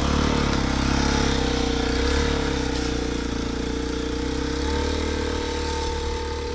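Small motorcycle engine idling steadily, fading slightly toward the end.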